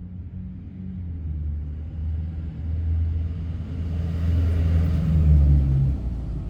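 A motor vehicle passing: a low engine rumble that builds to a peak about five seconds in, then falls away.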